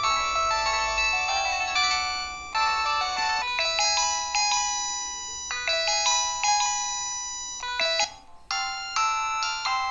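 Polyphonic 16-voice MIDI ringtone playing on a Modottel WTE-300 mobile phone: several clear electronic notes sound at once, high and thin with almost no bass. The melody breaks off briefly about eight seconds in, then the notes resume.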